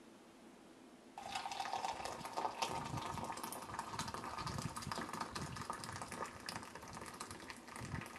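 Water pouring in a steady stream from an electric gooseneck kettle into a glass measuring cup. It starts suddenly about a second in and tails off near the end.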